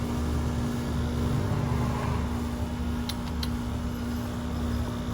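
Steady low mechanical hum with a constant tone, and a few quick clicks about three seconds in.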